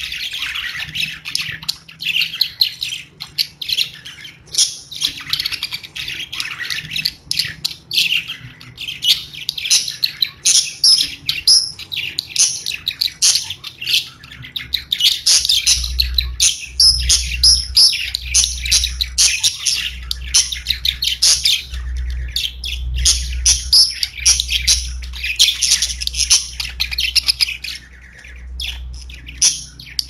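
A group of pet budgerigars chirping and singing in a dense, continuous chatter of many overlapping short calls. A steady low hum joins about halfway through.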